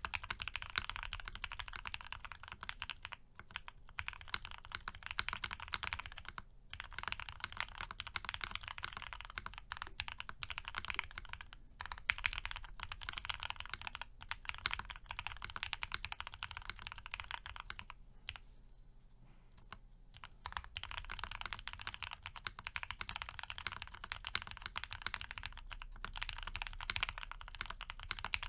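Continuous fast typing on a Piggy 60 custom mechanical keyboard with a polycarbonate plate, lubed and filmed Gateron FC switches and CRP APL keycaps, with brief pauses a few times and a longer lull past the middle. The sound is a little quieter than on foam-dampened boards.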